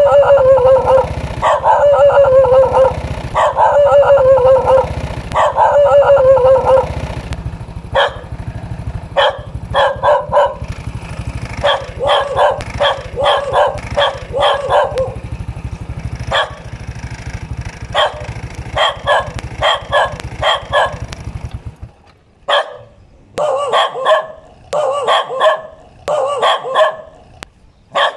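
Dog barking over and over: four drawn-out, wavering barks in the first seven seconds, then volleys of short, sharp barks, often two or three at a time.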